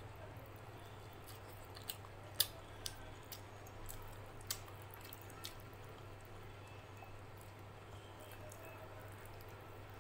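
Close-up eating sounds: a mouthful of chicken curry being chewed, with short sharp wet mouth clicks and smacks, most of them between about two and five and a half seconds in, then fingers squishing rice into the curry. A faint steady low hum lies underneath.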